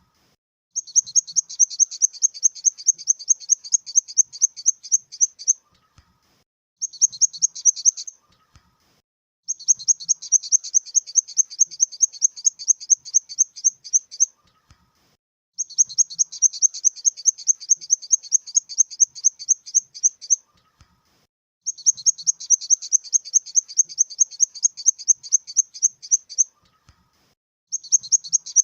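Grasshopper stridulating: high-pitched trains of rapid chirping pulses in bouts of about five seconds, each broken off by a pause of about a second.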